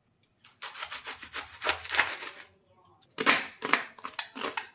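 Kitchen knife cutting a head of cabbage on a plastic chopping board. It starts with one long slicing cut of about two seconds, and near the end comes a run of quick chops, about three a second, as the cabbage is shredded.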